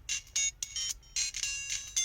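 LG-LB2900 mobile phone ringtone playing: a quick electronic melody of short, bright notes with brief gaps between them.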